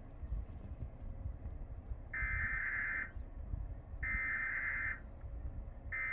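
Emergency Alert System SAME header: three digital data bursts, each about a second long with about a second's pause between them, opening a Required Weekly Test. The third burst starts near the end.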